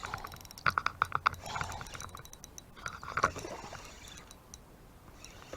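Rapid clicks and knocks from fishing gear handled while a hooked bass is reeled in. A dense run of clicks comes about half a second in and another cluster around three seconds in, then it goes quieter.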